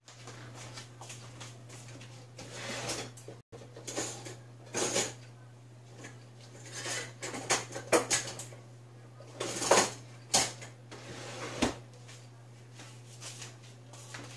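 Kitchen handling noises: irregular knocks, clinks and scrapes of dishes and utensils, the loudest about eight and ten seconds in, over a steady low hum.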